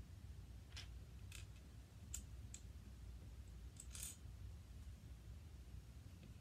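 Small LEGO plastic pieces clicking as they are handled and pressed together. There are about six light clicks over a few seconds, the loudest about four seconds in.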